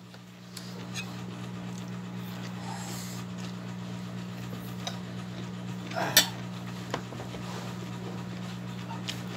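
A few light clicks of a metal spoon against a plate while food is wrapped in a lettuce leaf, the sharpest about six seconds in, over a steady low hum.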